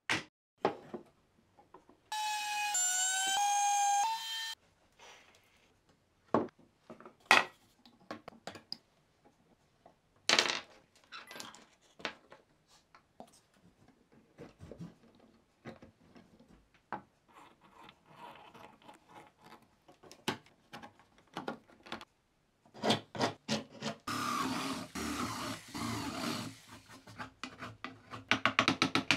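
Wooden boards and small wooden parts clacking and knocking as they are set down and fitted together, in scattered separate taps. About two seconds in, a brief squealing tone steps through a few pitches. Near the end, a chisel cutting into a wooden box gives a denser scraping and shaving of wood.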